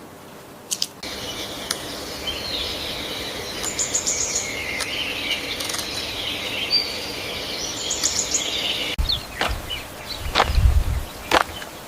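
Small birds chirping over a steady outdoor background. About nine seconds in, this cuts off and gives way to scattered clicks and a loud low rumble.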